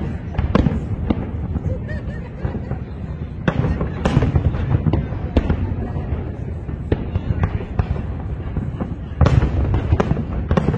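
Aerial fireworks shells bursting in a string of sharp bangs, roughly one or two a second, over a continuous low rumble of further explosions.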